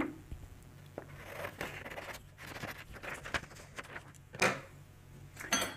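Scissors snipping through a sheet of printer paper, with the paper rustling and crackling as it is handled. A louder brief knock or rustle comes a little over four seconds in, and a few light clicks near the end as things are handled on the table.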